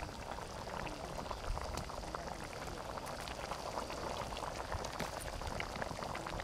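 Chicken gravy boiling hard in a metal kadai over a wood fire: a steady, dense bubbling and popping. The gravy is being boiled down to thicken.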